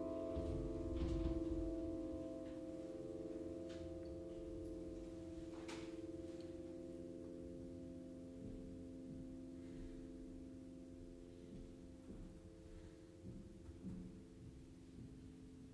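Grand piano strings ringing on after a chord, a cluster of steady tones left to fade slowly. There is a soft low thump about a second in and a few faint clicks.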